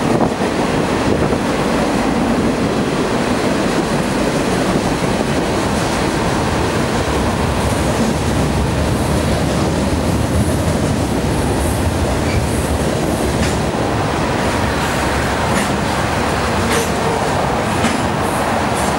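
Freight train cars rolling steadily along the rails: a continuous rumble and wheel noise, with a few short, high wheel squeaks in the second half.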